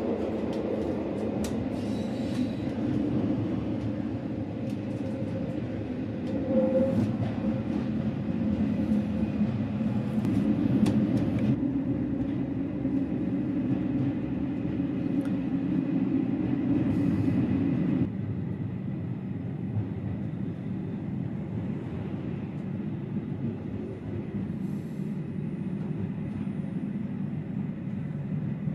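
Metre-gauge Chemins de fer du Jura regional train running, a steady rumbling train noise. The sound changes abruptly about a third of the way in and again past the middle, turning quieter.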